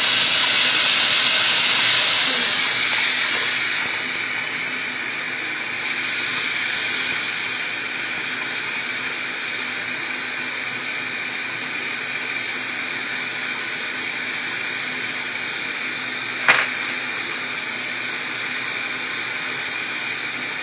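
Water running from the tap into a stainless steel kitchen sink and splashing over a puppy as hands wash its coat, a steady rush that is louder in the first few seconds. A single sharp knock about sixteen seconds in.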